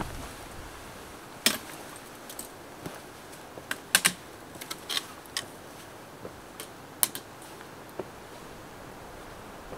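Trekking pole tips and hiking boots tapping and scraping on rock boulders as a hiker climbs over them: sharp, irregular clicks, the loudest about a second and a half in and around four seconds in, over a steady background hiss.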